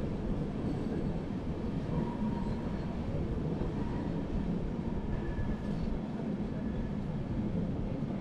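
Passenger train running along the track, a steady rumble of wheels and carriage heard from inside the coach.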